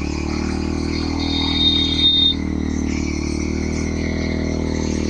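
Bajaj Pulsar NS125 single-cylinder engine running at steady low revs through an aftermarket SC exhaust. About a second in, a brief high-pitched tone sounds for about a second.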